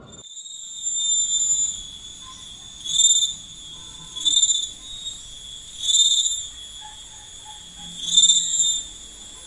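Insects buzzing in a steady high-pitched whine that swells loud five times, about every one to two seconds. Faint short bird chirps sound underneath.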